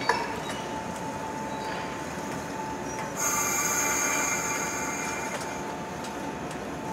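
Yellow 115-series electric train running slowly through a curve, its wheels squealing with steady high tones that grow louder for a couple of seconds midway.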